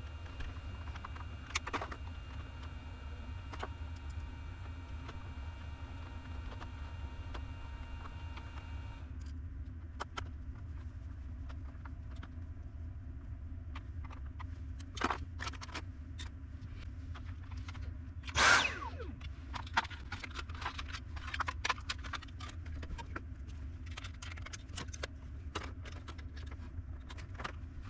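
Scattered clicks and clatter of small hard parts being handled, with a louder rustle about two-thirds of the way through, over a steady low hum; a set of steady tones stops about a third of the way in.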